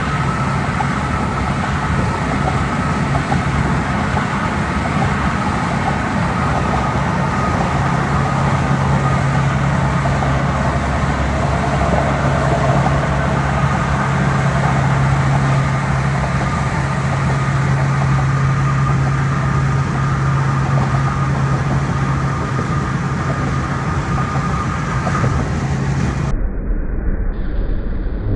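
Steady road noise of a car cruising at highway speed, heard from inside the cabin: tyre and wind noise with a steady low hum. The sound changes abruptly near the end.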